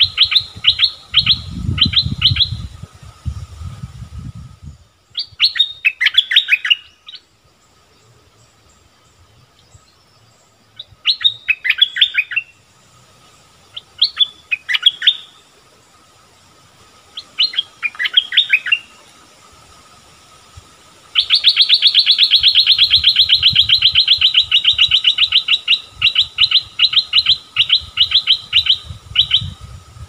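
Bulbul calling in short bursts of quick chirps, then, about two-thirds of the way in, breaking into a long, fast run of repeated chirps.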